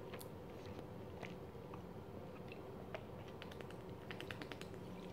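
Faint mouth sounds: soft chewing clicks, then swallowing while drinking from a plastic drink bottle.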